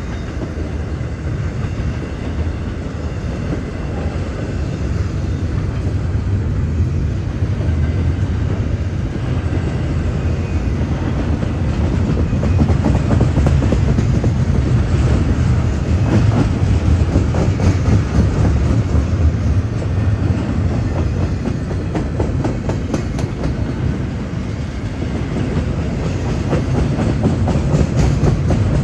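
Freight train cars rolling past, with a steady rumble and their wheels clicking rapidly over the rail joints.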